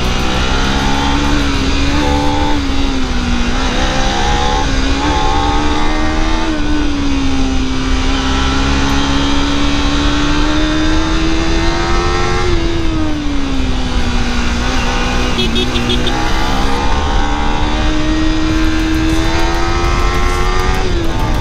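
Motorcycle engine running hard along a winding road. Its pitch climbs slowly and drops back several times as the bike speeds up and slows into corners, over a steady low wind rush.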